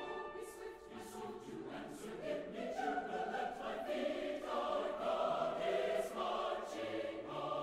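Choral music: a choir singing slow, held chords that change about every second, with lower notes joining near the end.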